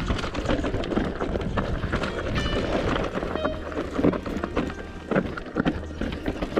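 Bike clattering down a rough, rocky trail: a constant run of knocks and rattles from tyres striking rocks and the bike shaking, with a few brief high squeals.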